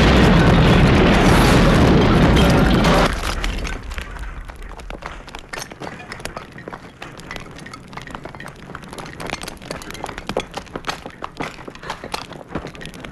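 A bomb explosion: a loud blast lasting about three seconds that cuts off abruptly, then many scattered crackles and small clicks.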